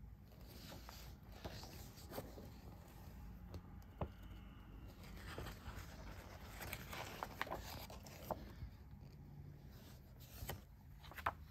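Faint handling sounds of a paper magazine and small objects being moved about: rustling and scraping, with scattered light clicks and taps. The sharpest taps come about four seconds in and just before the end.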